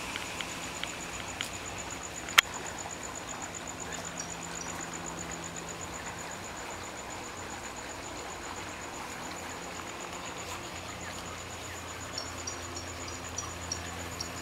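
Steady outdoor background hiss with faint, high bird chirps in short runs, about four seconds in and again near the end. One sharp click about two and a half seconds in.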